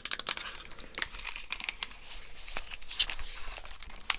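Close-up crinkling and rustling with scattered small clicks as a pair of headphones is handled near the microphone.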